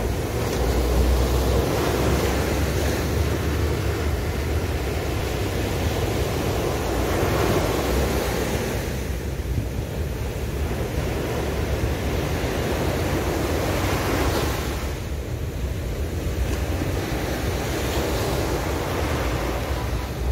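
Sea waves breaking and washing up a beach, the surf rising and easing as the waves come in and draw back. Wind rumbles on the microphone underneath.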